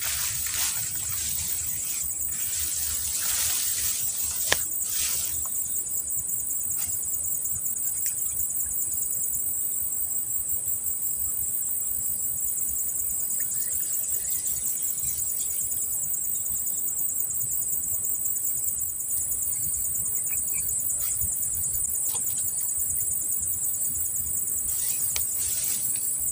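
Insect chorus: a steady, high-pitched buzzing with a fast pulse. A few rustles and one sharp click come in the first few seconds.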